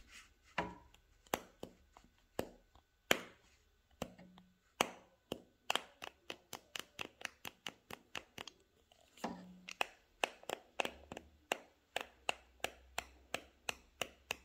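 Loose end cap on an LTT screwdriver's bit carousel clicking as it is wobbled by hand: a string of sharp clicks, sparse at first, then about two a second. A cheap sound, which the owner takes for a cap that wasn't properly fitted on.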